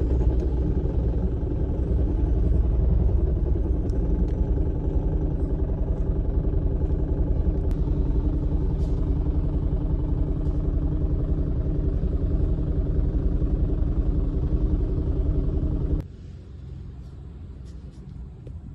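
Toyota Prius gasoline engine running steadily, a car with a cylinder 3 misfire logged (code P0303). About sixteen seconds in, the engine shuts off suddenly, leaving only a faint steady hum.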